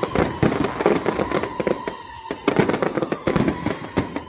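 Fireworks display: many aerial shells bursting in rapid succession, a dense run of bangs and crackling, with a brief lull about halfway through.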